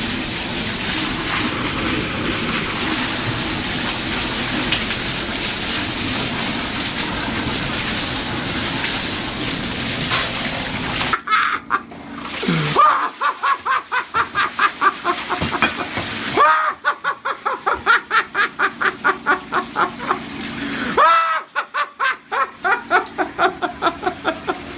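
Water gushing steadily, as from a broken copper pipe flooding a building. About eleven seconds in it gives way abruptly to a fast, even pulsing of about four or five beats a second, with a few rising-and-falling tones.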